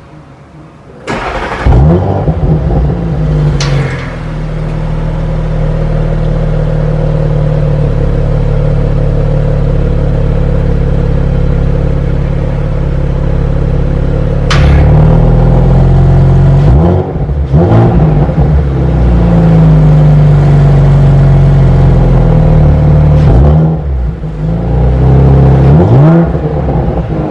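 An Audi RS car's engine and exhaust start up about a second in with a brief flare, then idle steadily. From about halfway the engine is revved several times in quick blips, falling back to idle between them.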